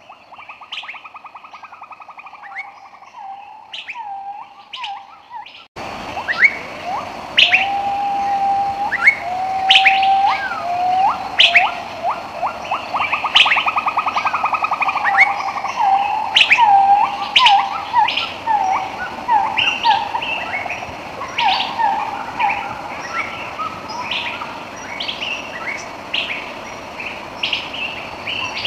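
Birds chirping and calling: many short, quick chirps and whistles with a buzzy trill, growing louder over a steady hiss that comes in suddenly about six seconds in.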